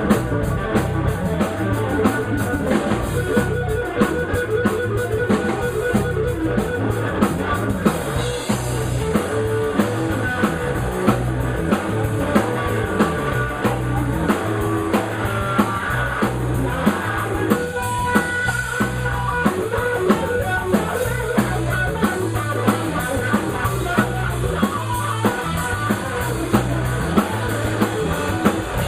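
Live rock band playing an instrumental passage: a drum kit keeping a steady beat with sharp regular hits, over electric guitar and bass.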